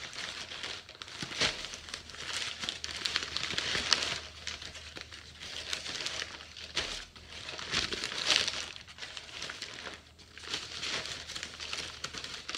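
Newspaper wrapping crinkling and rustling as hands pull it off a wrapped package, the crackle coming and going unevenly.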